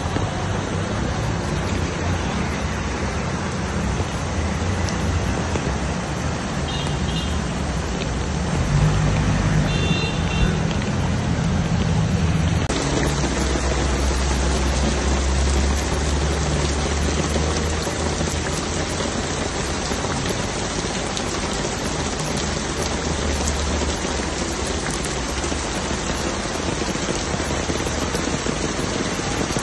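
Steady noise of heavy rain and floodwater running across a street, with a low rumble underneath. The sound changes abruptly about 13 seconds in.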